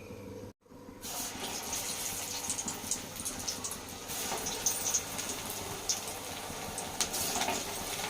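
Mudda garelu, rice-flour and lentil fritters, sizzling as they deep-fry in hot oil, a steady hiss with scattered sharp crackles. It starts about a second in, after a brief cut.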